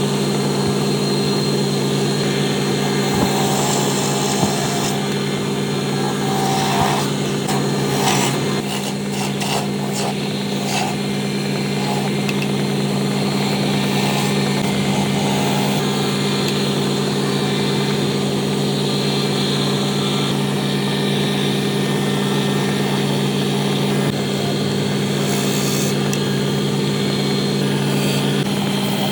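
An electric power tool running steadily while working wood, its motor humming at a constant pitch, with some irregular clicks and scraping around the middle.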